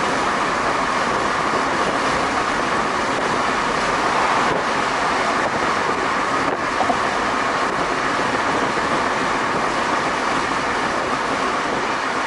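Steady road and tyre noise with wind, heard from inside a car cruising at freeway speed.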